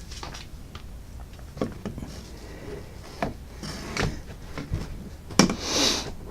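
Handling noise as rifle scopes are put down and picked up: scattered light clicks and knocks, with a sharper knock about five and a half seconds in followed by a short rustle.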